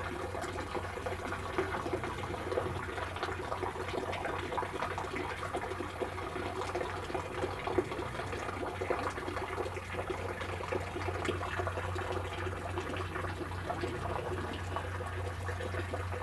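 Steady trickle of running water with a low hum underneath. It goes on evenly, with no single loud event.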